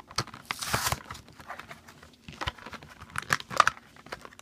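A plastic toy wrapper being crinkled and torn open by hand: irregular crackles and rustles, with a longer tearing rustle about half a second in.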